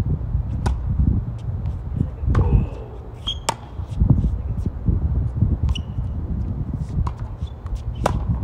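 A tennis rally: sharp racket-on-ball strikes every few seconds, a serve and then forehands, with fainter hits and ball bounces in between, over a steady low rumble.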